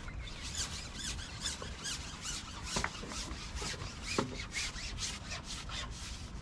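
Long fishing pole being shipped by hand, its sections sliding through the angler's hands and over its support as a series of short hissing rubs, two or three a second, with a couple of sharper clicks about three and four seconds in.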